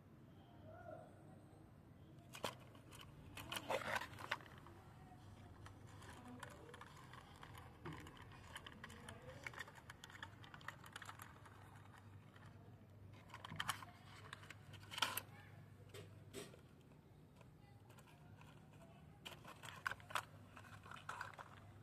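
Plastic toy auto-rickshaw being handled: its wheels and plastic body give clusters of faint clicks and rattles in several short bouts, over a faint steady low hum.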